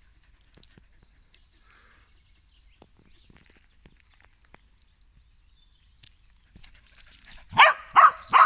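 A dog barks three times in quick succession near the end, sharp and loud, after a quiet stretch of faint footsteps on gravel.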